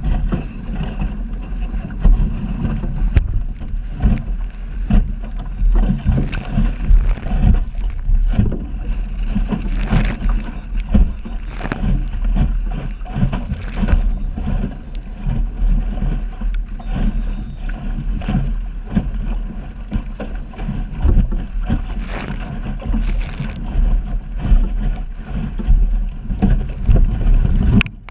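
Wind buffeting the microphone of a camera in the bow of a sailing dinghy, with water slapping and splashing against the hull as it drives through choppy water. The sound is a constant loud rush with frequent irregular sharp splashes and knocks.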